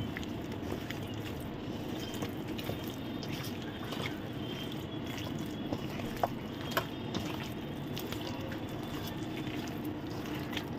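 Hands squeezing and turning raw chicken pieces in a thick spice marinade in a stainless steel bowl: a steady wet squelching with a few light clicks.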